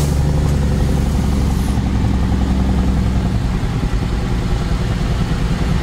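Car engine and road noise while driving, a steady low drone that turns rougher and more uneven about three and a half seconds in.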